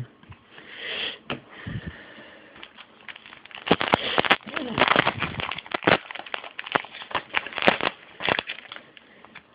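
Trading card pack wrapper crinkling and crackling in the hands, in an irregular run of sharp rustles and clicks that grows busier about three and a half seconds in.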